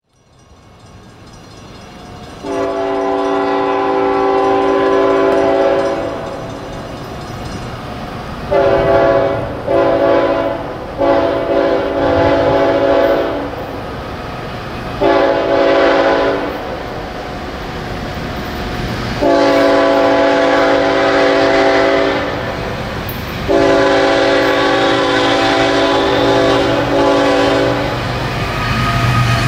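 Diesel freight locomotive's multi-note air horn sounding a series of long and short blasts as the train approaches, the last one held long. Under it a low rumble of the locomotives builds toward the end.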